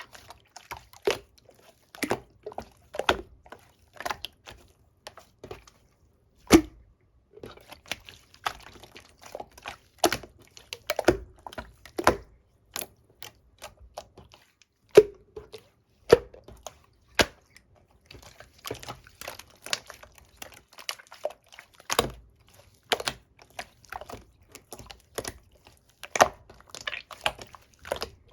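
Soft, wobbly melon-pudding slime being pressed and played with by hand, giving irregular sticky pops, clicks and wet squelches, several a second in places.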